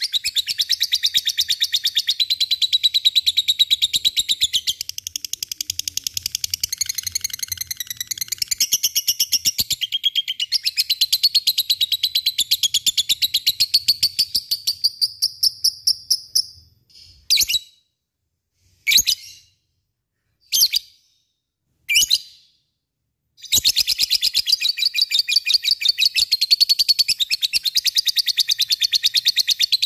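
Lovebird giving its long 'ngekek' chatter: a very fast, unbroken run of shrill notes lasting over fifteen seconds. It breaks into four short separate calls, then starts a second long fast run about two-thirds of the way in.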